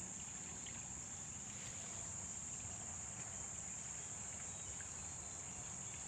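Steady, high-pitched insect chorus droning without a break, over a faint low wash of background noise.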